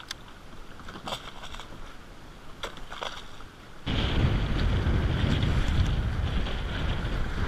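Water lapping with a few sharp clicks, then about four seconds in, loud wind buffeting the microphone over choppy water.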